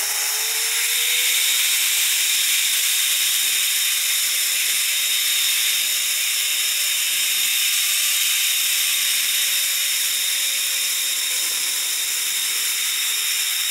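Zip line trolley pulleys running along the steel cable with a steady high hiss. A faint whine rises slowly in pitch as the rider speeds up, then sinks again over the second half as she slows toward the landing.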